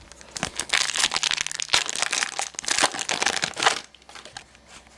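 Crinkling and crumpling of plastic or foil card packaging as trading cards are handled, a dense crackle lasting about three and a half seconds that stops near the end.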